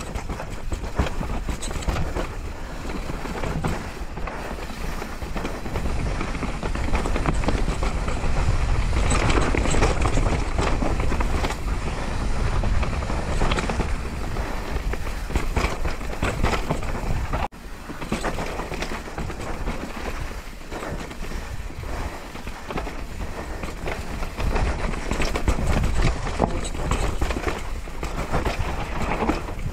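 Downhill mountain bike at speed on a rough trail: tyres on dirt and rock and the bike rattling over bumps, with low wind rumble on the microphone. A brief dropout just past halfway.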